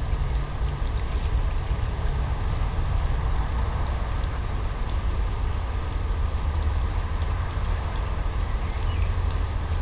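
Pool water sloshing and lapping as a person moves through a shallow inflatable pool, over a steady low rumble.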